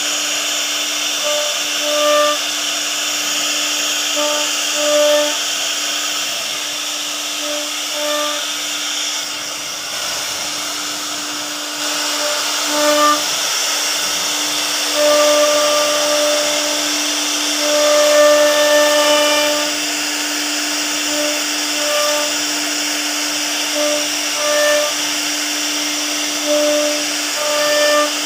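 CNC router spindle carving a wooden door panel, running with a steady whine under a hiss of cutting. Short higher whines come and go many times, some brief and some over a second long.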